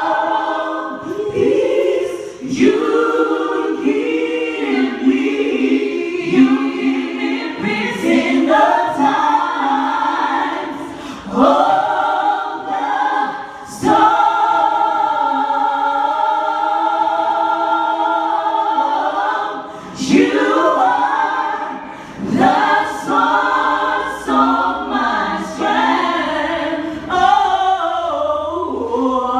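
A group of voices singing in harmony without instruments, a cappella gospel style, with a long held chord about halfway through.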